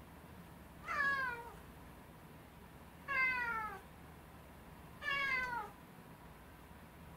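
Domestic cat meowing three times, each call drawn out and falling in pitch, while left home alone.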